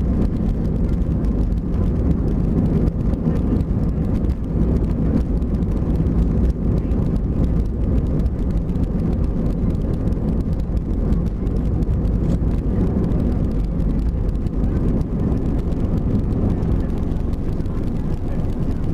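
Airbus A320-200 cabin noise: a steady, even rumble of engines and airflow heard from inside the cabin.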